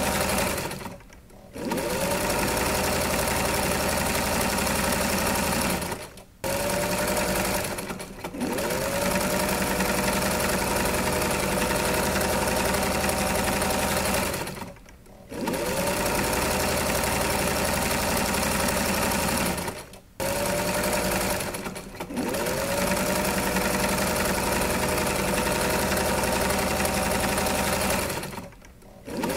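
A small motor whirring steadily and loudly. It stops briefly about seven times, and each time it starts back up with a rising whine.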